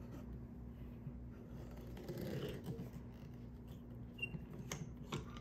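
Hand-held canning crimper being turned around the metal lid of a glass jar: faint scraping handling with a few small sharp clicks in the second half, as the seam is tightened until the tool will no longer go around.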